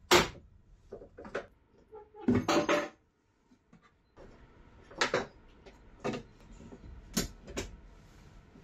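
Workshop handling noise: a series of sharp knocks and clicks as tools and parts are picked up and set down, with a longer rattling clatter a little over two seconds in.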